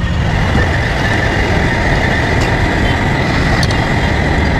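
Steady loud street noise with vehicle traffic and a constant high-pitched whine running over it.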